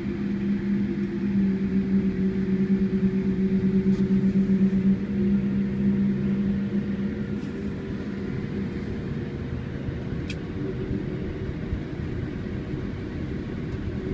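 Cabin noise of a Boeing 787 Dreamliner taxiing, heard from a window seat: a steady low hum and rumble. A deeper pulsing drone in it fades out about six seconds in.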